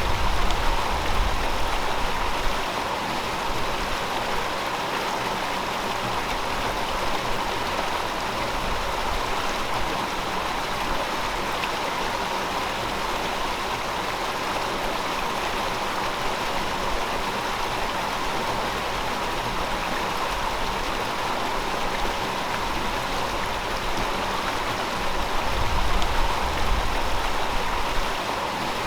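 A river flowing, a steady rush of water. A deeper rumble swells briefly near the start and again near the end.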